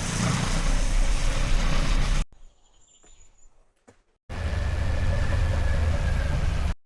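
Motorcycle riding noise with wind rushing over the microphone, cut off suddenly about two seconds in. A quiet stretch follows with only a faint, thin high tone. About four seconds in, the riding and wind noise cuts back in.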